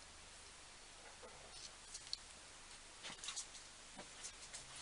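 Near silence with a few faint, light clicks of a measuring tool being handled on a small metal part.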